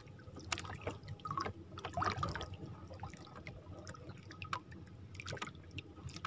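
Water lapping and dripping against the hull of a small outrigger canoe, with scattered light clicks and knocks and a slightly louder slosh about two seconds in.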